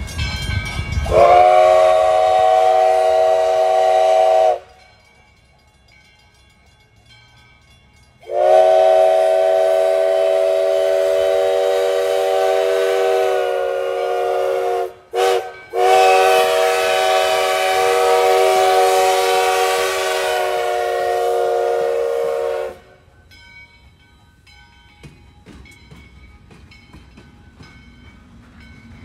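Steam locomotive No. 148, an ALCO 4-6-2, blowing its multi-chime steam whistle as it passes: a chord of several steady tones. There are four blasts, long, long, short and long, the pattern of a grade-crossing signal. After the whistle stops, the quieter rumble of the passing train follows.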